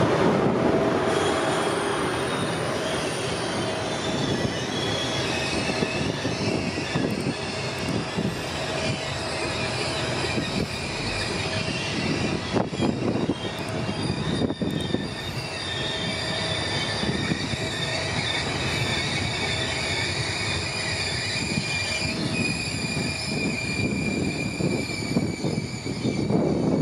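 Intercity passenger coaches rolling past on a curved track, their wheels squealing in several high steady tones over a continuous rumble. A few sharp clicks come about halfway through.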